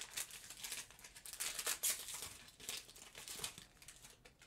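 Foil Pokémon booster pack wrapper crinkling in the hands as it is torn open and the cards are pulled out, a run of short rustles that dies away near the end.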